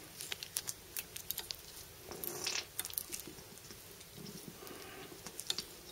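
Faint scattered clicks and a brief sliding rustle about two seconds in, as the pinion shaft of a freshly rebuilt E-type Series 2 power steering rack is turned by hand and the rack bar moves. The slipper plate is tensioned just enough to take the kick out of the shaft, giving a smooth movement.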